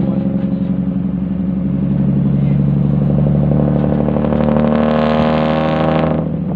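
Isuzu Deca truck's diesel engine running through a loud exhaust as the truck accelerates. The note climbs steadily and grows louder, then falls back abruptly near the end.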